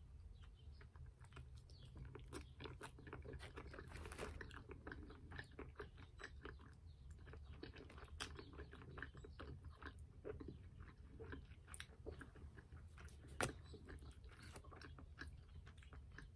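Faint, close-up chewing of a bite of a grilled chicken sandwich: soft, irregular wet mouth clicks, with one sharper click about three-quarters of the way through.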